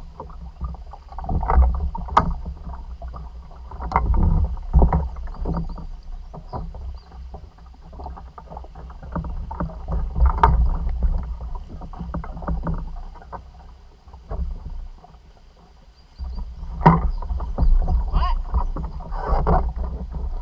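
Water splashing and sloshing against a plastic sit-on-top kayak as a man climbs back aboard from the water, with irregular knocks and bumps on the hull. The sound eases for a couple of seconds late on, then the splashing and knocking pick up again.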